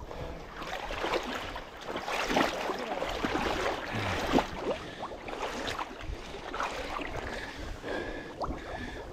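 Water sloshing and lapping with small splashes as someone moves through calm lake water toward a floating shot duck.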